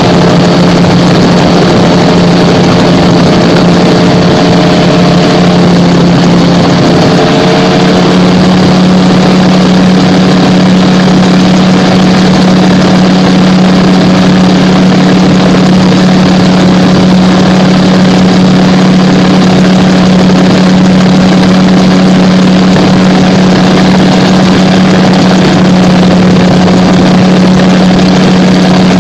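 Gyrocopter in flight: its engine and propeller drone steadily and loudly, a strong low hum with a dense hiss over it. The pitch shifts slightly about seven seconds in.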